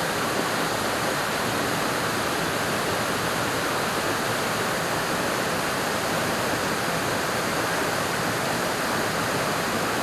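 Waterfall pouring down a rock face close by: a loud, steady, unbroken rush of water.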